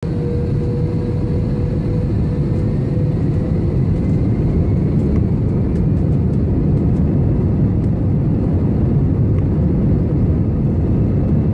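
Steady low rumble of an airliner cabin in flight, the engine and air noise heard from inside, with a faint steady tone in the first couple of seconds and a few faint ticks midway.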